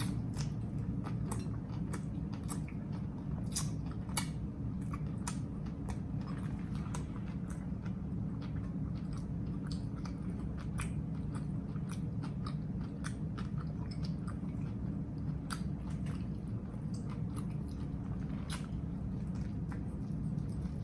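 A person chewing and biting into a grinder sandwich close to the microphone, with many short, crisp mouth clicks and crunches over a steady low hum.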